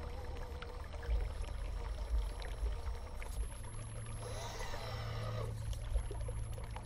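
Steady trickle of running pond water under the whine of a micro RC crawler's small electric motor. The whine wavers up and down in pitch and is lowered by slowed-down playback. It gets louder and fuller for a second or so just past the middle.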